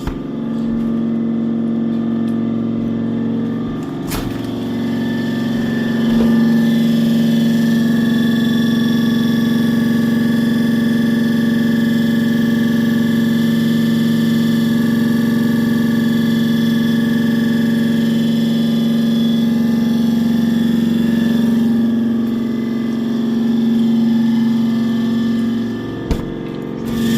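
A motor or engine running steadily with a constant pitched hum. It eases off briefly near the end.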